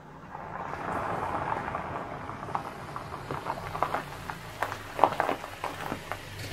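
Honda CR-V's tyres crunching and popping over a gravel driveway as the SUV rolls slowly up and stops, its engine running low underneath. The crackling of stones is densest in the middle seconds.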